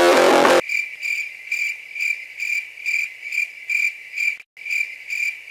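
Guitar music cuts off abruptly about half a second in. A cricket chirping sound effect follows, a steady high chirp repeating about twice a second, with a brief drop-out about four and a half seconds in.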